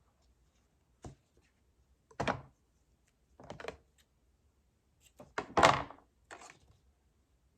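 Cardstock and album flaps being handled on a tabletop: a sharp click about a second in, then several short rustles and thunks, the loudest a little past the middle.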